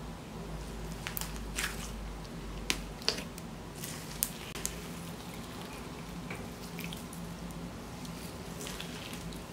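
Clear glitter slime worked by hand in a glass bowl: wet, sticky squishing with a scattering of sharp little pops and clicks, most of them in the first half.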